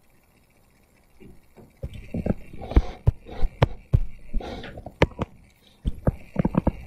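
A stylus tapping and scraping on a touchscreen as someone writes, heard as irregular sharp knocks and clicks with short rubbing sounds, starting about two seconds in.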